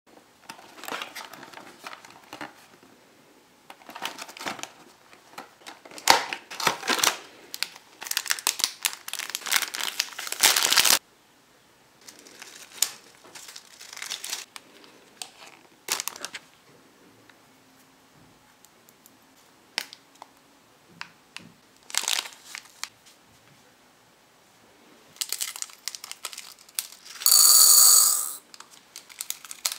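Thin plastic candy-kit bags crinkling and tearing as they are handled and opened, in irregular bursts. Near the end, a dense rattle of tiny sugar candy beads poured from a bag into a hard plastic bowl.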